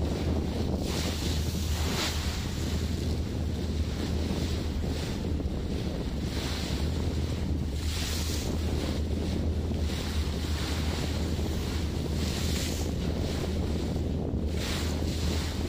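Wind buffeting the microphone over the rush of open sea water, with a steady low rumble underneath and gusts that swell and fade every second or two.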